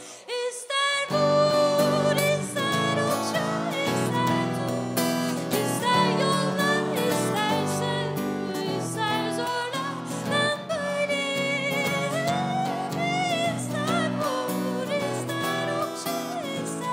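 A woman singing live with acoustic guitar accompaniment. The music drops out briefly at the start and comes back in about a second in.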